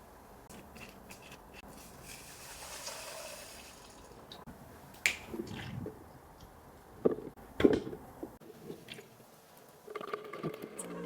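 Handling noise from a toy gel blaster: faint rustling with a few sharp clicks, the loudest about five, seven and nearly eight seconds in.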